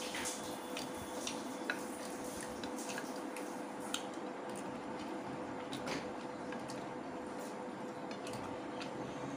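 Small, scattered clicks and taps of a hand working rice and curry on a ceramic plate, eating by hand. They sound over a steady faint hum.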